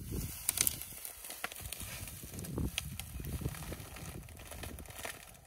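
Dry grass and brush crackling and snapping in irregular clicks as an African elephant pulls at vegetation with its trunk while feeding, over a low rustling noise.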